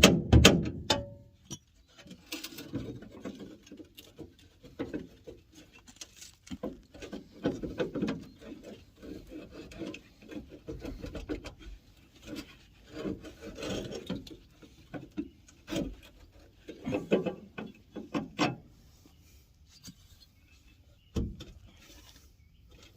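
Hand tools scraping and rubbing in irregular strokes against a rusty trailer hitch and its bolts, with scattered sharp knocks, one louder near the end.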